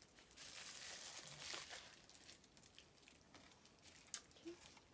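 Faint crinkling of packaging being handled for about the first two seconds, then a few small clicks.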